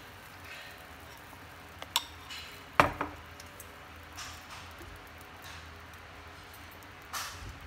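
Glass mixing bowl clinking and knocking as it is set down on the counter: two light clinks about two seconds in, then one sharper knock just under a second later, with a softer knock near the end.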